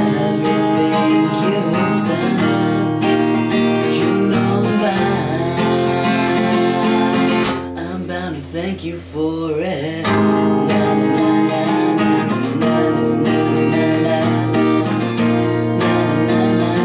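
Acoustic guitar strummed in a steady rhythm, dropping to a quieter, sparser passage about eight seconds in before the full strumming comes back.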